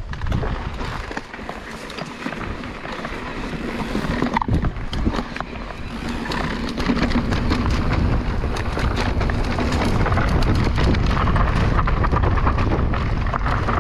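Mountain bike being ridden over a rough, stony trail: tyres on loose ground, the bike rattling with scattered clicks and knocks, and wind buffeting the microphone, getting louder from about seven seconds in.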